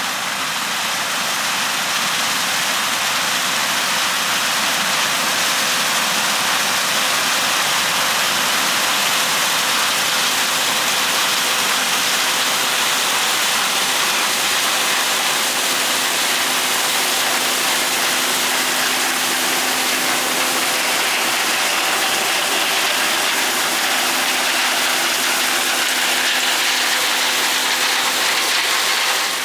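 John Deere combine running while shelling corn with a 6-row corn head, heard as a steady rushing noise with a faint steady hum.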